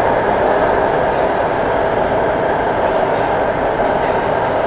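Santiago Metro Line 6 Alstom AS-14 train running at speed through a tunnel, heard from inside the car: a steady, loud running noise of wheels on rail and traction equipment.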